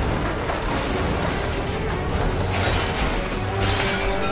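Film score music over a low rumble of fire and destruction sound effects, with two crashes about two and a half and three and a half seconds in, as a burning wooden railway trestle gives way.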